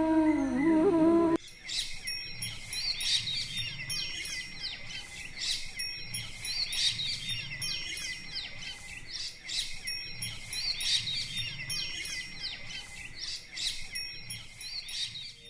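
About a second of soft, gliding sustained musical tones that cut off suddenly, followed by rural morning ambience: many small birds chirping and twittering continuously over a steady high tone.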